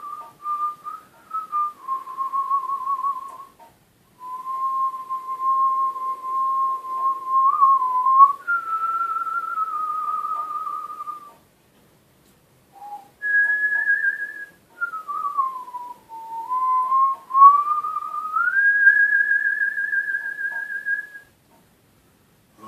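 A person whistling a slow melody by mouth in the art-whistling style, with vibrato on held notes. The tune comes in three phrases separated by short breaths.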